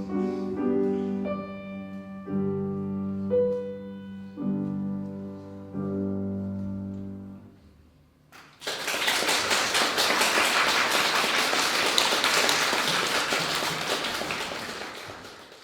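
Cello and piano playing the last held notes of a piece, which die away about seven and a half seconds in. About a second later the audience breaks into applause, which fades near the end.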